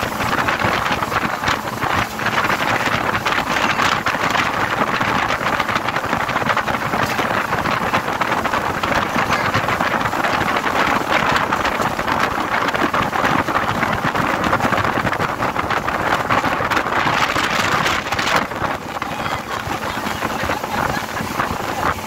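Motorboat under way, its engine running steadily under a loud rush of wind buffeting the microphone.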